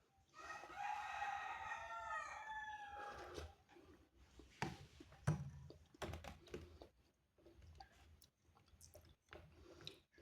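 A rooster crowing once, a single drawn-out call of about three seconds, followed by scattered light clicks and knocks.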